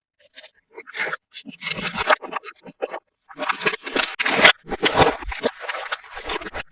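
Toy packaging being handled and unwrapped by hand: irregular rustling, scraping and crinkling, with a short pause about three seconds in.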